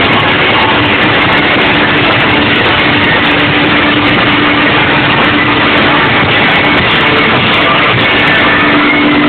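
Live rock band playing loudly and without a break, a held note sounding through much of it.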